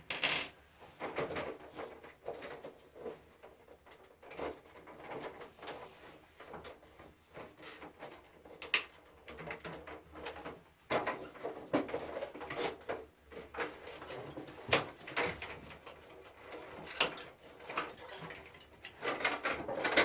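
Irregular clicks, knocks and scrapes of a wall-mounted air conditioner's parts being handled and unclipped during its disassembly for cleaning.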